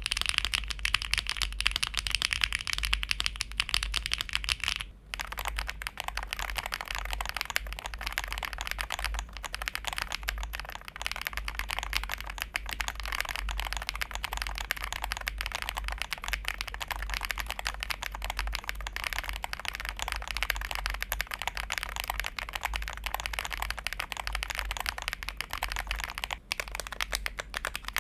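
Fast, continuous typing on a mechanical keyboard, a dense stream of key clacks. The tone of the typing changes abruptly about five seconds in and again near the end.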